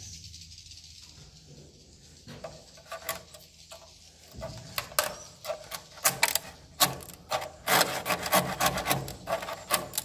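Metal knife blade scraping along a wooden swiftlet-nest plank while prising off a nest, irregular rasping strokes. The strokes start faint about two seconds in and come louder and quicker from about halfway, several a second.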